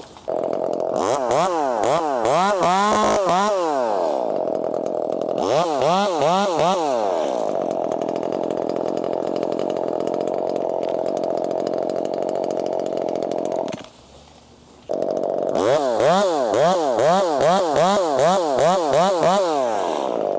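Two-stroke chainsaw idling, broken by three spells of rapid throttle revs that rise and fall several times a second. The sound drops out for about a second roughly two-thirds of the way through.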